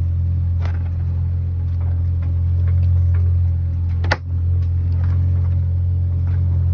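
A sailboat's inboard engine running steadily under way, a constant low drone. There is one sharp knock about four seconds in and a few faint ticks.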